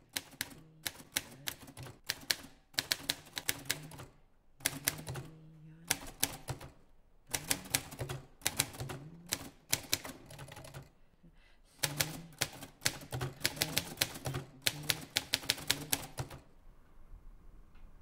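Triumph manual typewriter being typed on: runs of quick key strikes broken by short pauses, stopping near the end.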